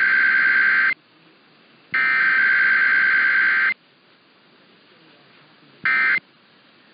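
Emergency Alert System SAME digital data bursts received off a broadcast station. A long header burst ends about a second in and another runs from about two seconds to nearly four. After a stretch of faint hiss, a short end-of-message burst comes near the end.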